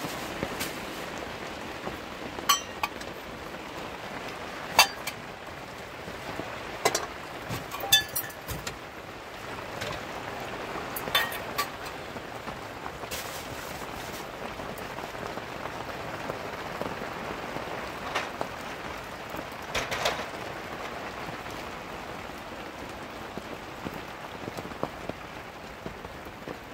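Household items being handled and put away: a series of sharp clinks and knocks a few seconds apart over a steady hiss.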